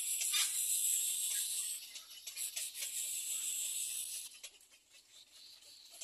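Little egret chicks begging at the nest while being fed: a rapid hissing, clicking chatter that dies down about four seconds in.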